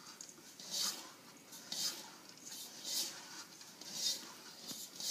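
Hands kneading stiff flour-and-water dumpling dough in a stainless steel mixing bowl. Each press and turn gives a short rubbing, scuffing sound, about once a second, as the dough is worked together until firm.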